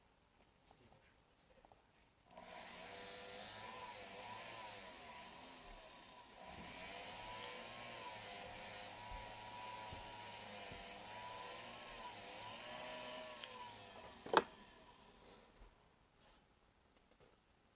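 A jeweler's small rotary tool running against a white gold ring, grinding or sanding the metal, its motor pitch wavering as the speed and pressure change. It starts about two seconds in, pauses briefly, runs again, then winds down, with one sharp click near the end.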